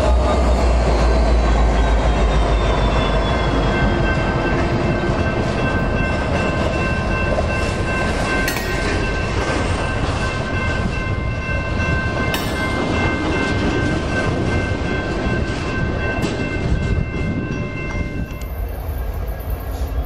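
Short BNSF freight train led by diesel locomotives passing close by. A heavy low engine rumble at the start eases off, then the cars roll past with steady high ringing tones over the rolling noise.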